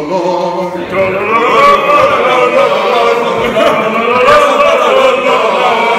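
A group of men singing loudly together in a drawn-out, wavering chant of held notes.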